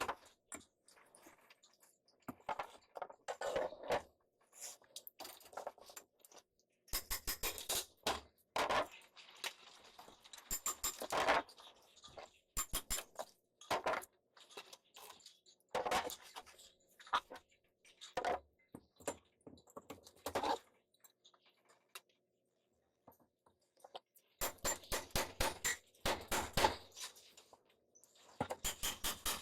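Irregular clicking, clattering and knocking of hand work, with several bursts of rapid sharp clicks.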